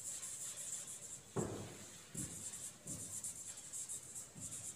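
Marker pen writing on a whiteboard: a few faint separate strokes and rubs, the strongest about a second and a half in, over a steady faint hiss.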